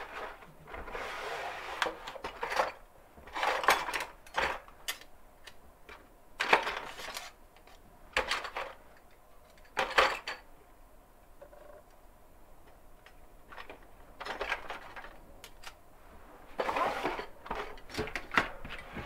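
Craft tools and bottles being handled on a desk: irregular clinks, knocks and rustles, with a few sharp clacks.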